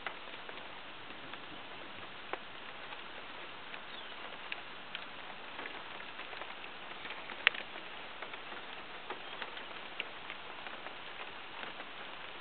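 Rain falling: a steady hiss with scattered sharp ticks of single raindrops striking close by, one much louder tick about halfway through.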